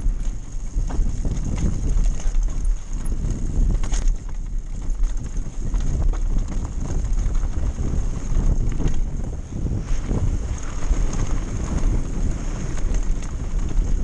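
Downhill mountain bike descending fast over a rough dirt and rock track: the knobby tyres rumble over the ground and the bike rattles and knocks irregularly over rocks and ruts, with wind buffeting the microphone.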